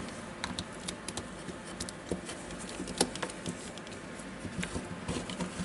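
Scattered light clicks and taps of plastic and metal parts being handled, with one sharper click about halfway through: the armature and gearbox of a Makita DDF456 cordless drill being seated into its plastic housing half.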